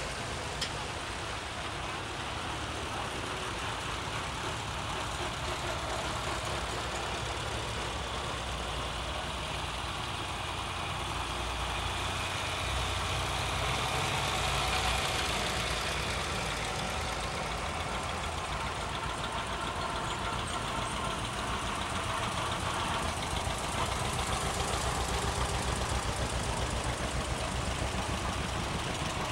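Antique farm tractor engines running as the tractors drive past one after another. A green John Deere two-cylinder tractor passes close, and its engine grows louder with an even pulsing beat near the end.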